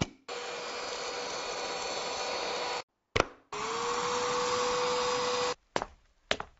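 Handheld cordless vacuum cleaner's 80 W motor running with a steady whine, in stretches that cut off abruptly. About three and a half seconds in it starts again, its whine rising and then holding. A few sharp clicks come near the end.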